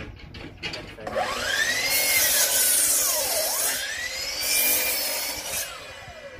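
HiKOKI C12RSH2 12-inch sliding compound miter saw starting up and cutting through a softwood framing timber. Its whine climbs, falls and climbs again, twice in all, under a loud hiss of the blade in the wood, and winds down near the end.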